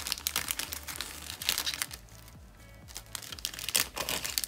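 Thin clear plastic packaging bag crinkling as hands handle it and take out its contents, in two spells with a short lull about two seconds in. Faint music plays underneath.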